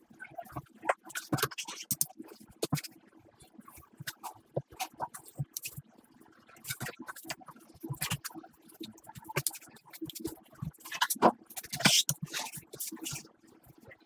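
A knife slicing through raw salmon fillet, scraping and knocking on a plastic cutting board, with the wet fish being handled: irregular scrapes and taps, loudest a little before the end.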